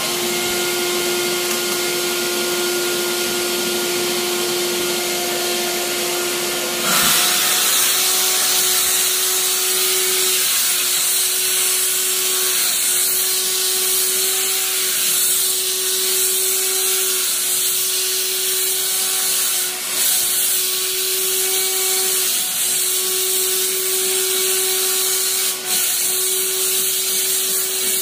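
Dry steam cleaner jetting steam onto a mattress: a steady loud hiss over the constant hum of the machine, the hiss growing stronger about seven seconds in and dipping briefly twice near the end.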